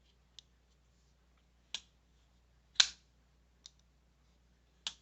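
Damned Designs Invictus folding knife being worked open and shut: five sharp clicks of the blade action at uneven spacing, the loudest about three seconds in.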